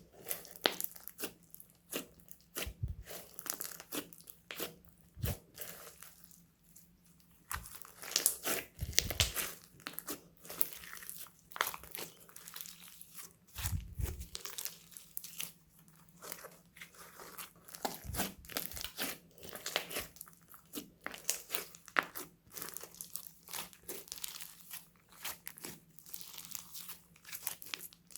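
Homemade slime being mixed and squished by hand, giving a run of irregular crackling, popping clicks, with a few dull thumps now and then.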